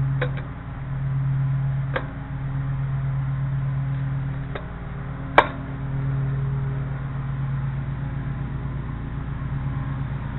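Sharp, isolated metallic clicks and taps of clip and lock hardware being handled on an aluminium launcher rail, the loudest about halfway through, over a steady low hum that swells and fades.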